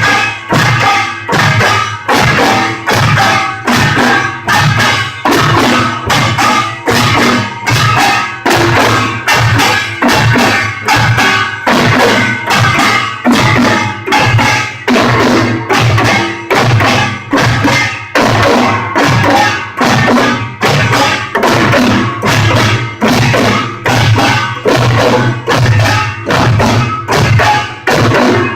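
Korean pungmul percussion ensemble of drums and gongs playing a fast, steady rhythm, about one and a half strong beats a second, over continuous bright metallic gong clangs. The sound is harsh and low in quality, as captured on a phone.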